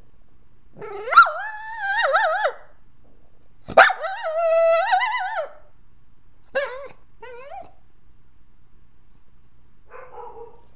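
A dog howling and whining at fireworks: two long cries that waver up and down in pitch, then two short cries and a fainter one near the end. A sharp crack comes just as the second long cry begins.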